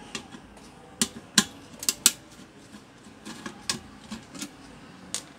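Screwdriver clicking and ticking against the rice cooker's white plastic base as its screws are backed out: scattered sharp clicks at irregular intervals.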